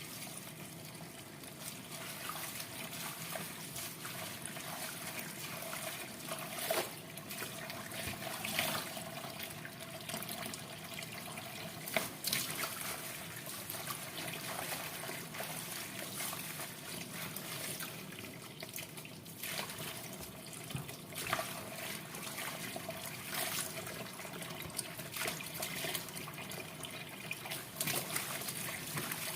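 Water trickling and splashing as chillies are washed by hand, with a steady running-water hiss and occasional sharper splashes and knocks.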